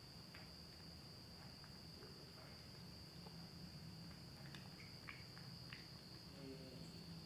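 Near silence: a faint, steady high-pitched insect trill, with a few soft clicks from a cat chewing food off a plate.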